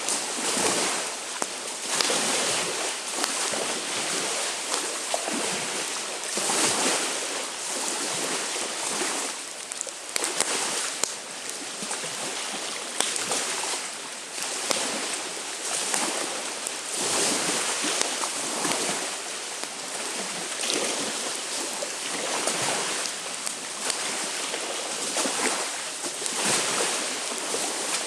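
Lake waves washing onto the shore in swells every couple of seconds, with wind and the light crackle of a windy campfire.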